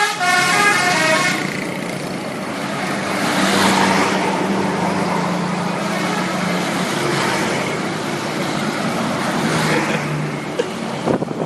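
A bus's multi-tone 'telolet' horn plays the end of its rapid stepping melody, stopping about a second and a half in. After that comes road noise and a steady low hum of bus engines.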